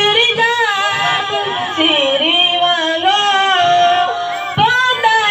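Boys singing a naat into microphones, a devotional chant with bending, drawn-out notes and one long held note in the second half.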